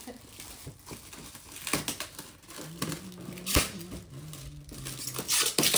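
Gift wrapping being torn and crumpled by hand: irregular crinkling and ripping rustles, with a few louder rips.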